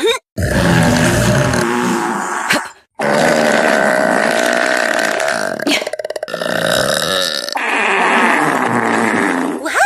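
A woman burping into a close microphone: three long, drawn-out, loud burps, back to back with short breaks between them.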